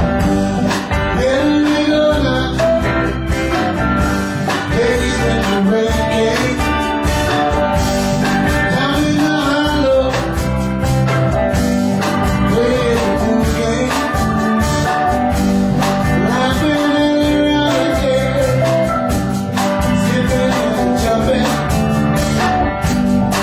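A live band playing a blues-style song with electric guitars and keyboard, and a voice singing over it.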